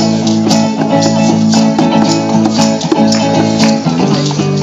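A small live band playing: acoustic guitars strumming steady chords while hand shakers and rattles mark the beat about twice a second.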